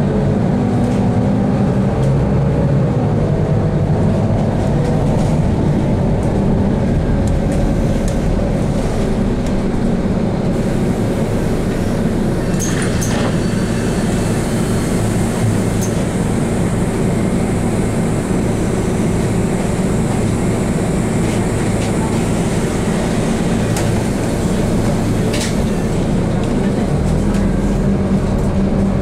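Inside a city bus: the engine runs with a steady low hum as the bus moves slowly and then stands at a stop. About ten seconds in, a long hiss of compressed air starts, with a few short clicks.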